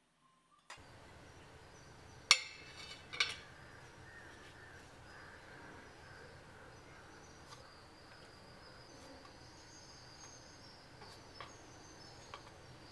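Stainless-steel plate set down on a countertop with two sharp metallic clanks a second apart, followed by faint background hiss with a faint high whine and a few soft taps.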